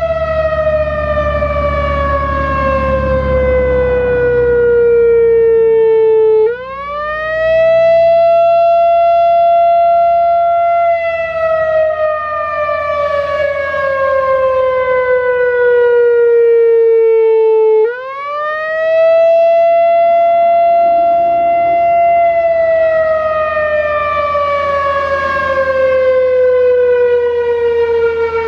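Whelen WPS-4004 electronic outdoor warning siren sounding its Attack signal, a slow wail. The pitch climbs quickly, holds for about four seconds, then sinks slowly over about seven seconds, and the cycle repeats about every eleven seconds. The quick climbs come about six and eighteen seconds in.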